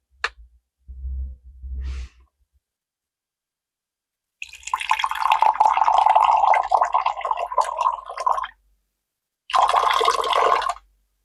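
Liquid poured into a glass tumbler: one long pour of about four seconds, then a second, shorter pour. A few faint handling sounds come before it.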